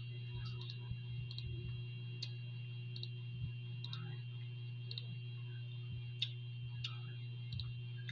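Chewing and small mouth clicks while eating, a dozen or so irregular soft ticks over a steady low hum.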